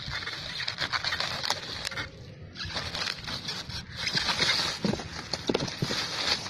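Thin plastic bag crinkling and rustling as rubber beading strips are handled and pulled out of it, a dense crackle of small clicks that briefly lets up about two seconds in.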